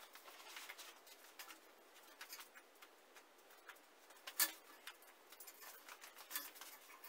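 Faint rustling and light clicking of a sheet of mosquito-net mesh being unfolded and spread over a window-screen frame, with one sharper click about four and a half seconds in.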